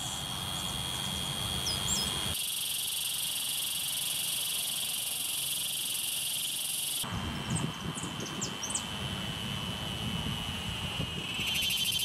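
Cicadas singing: a continuous high-pitched buzz that changes abruptly twice, turning into a harsher, broader hiss for a few seconds in the middle. A few short, faint chirps sound over it.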